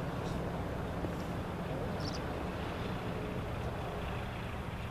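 A steady low engine hum from a running motor. A bird chirps briefly about two seconds in.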